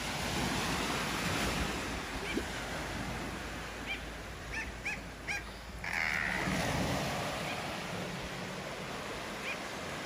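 Steady rush of sea surf on a rocky granite shore, with a bird giving short chirps several times around the middle.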